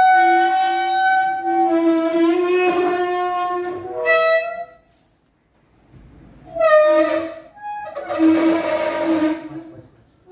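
Background music led by a flute-like wind instrument playing long held notes, which breaks off for about a second and a half midway and then starts again.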